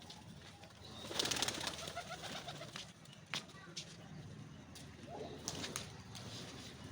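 Pigeons: a burst of rapid wing flapping about a second in, then soft cooing calls and a few sharp taps.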